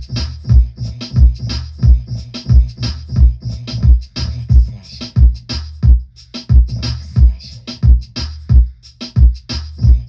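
Electronic beat: a programmed drum pattern with a heavy kick about every two-thirds of a second and quick sharp hits between. The kick drops out for a moment about six seconds in.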